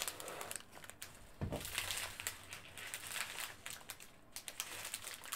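Strips of sealed plastic diamond-painting drill bags being handled and pulled across a table, crinkling irregularly, with a soft thump about one and a half seconds in.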